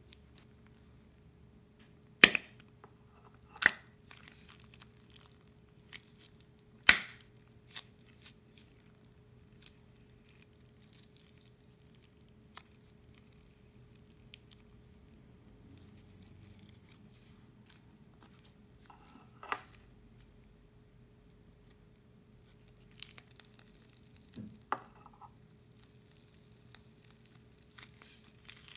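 Small scissors snipping the tip off a plastic piping bag, three sharp snips in the first seven seconds, followed by scattered faint crinkles of the plastic bag as it is squeezed.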